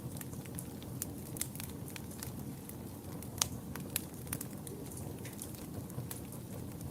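Fire burning in a fireplace: a steady low rush of flames with irregular sharp crackling pops, the loudest about halfway through.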